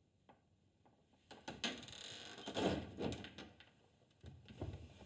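Wooden shed door being opened: a couple of faint clicks, then about two seconds of rattling and scraping with sharp knocks, and a shorter second round of noise near the end.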